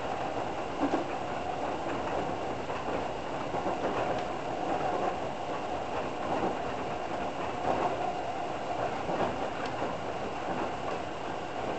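Cabin noise of a Toei Shinjuku Line train running at speed across a steel truss bridge: a steady noise of wheels on rail with a wavering hum, and a few clicks.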